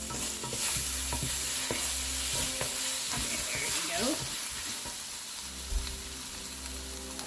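Eggs being scrambled into red curry paste, garlic and onion sizzling in hot oil in a pan, with a utensil stirring and scraping against the pan in short clicks.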